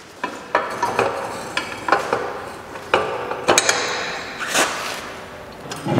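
Metal hydraulic hose couplers clinking and knocking as the hoses are handled, wrapped up and stowed: irregular sharp metallic clinks, some ringing briefly.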